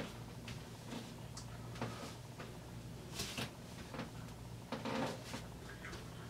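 Faint scattered rustles and light knocks of handling, the broadest a short noisy rush about three seconds in, over a steady low hum.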